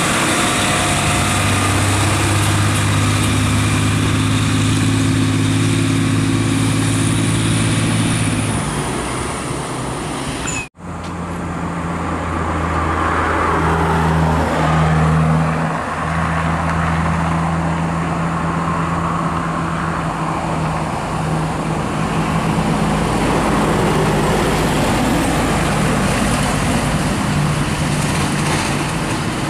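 A heavy truck's diesel engine running at low, steady revs. Its low hum drops away about a third of the way in, then picks up again after a brief break.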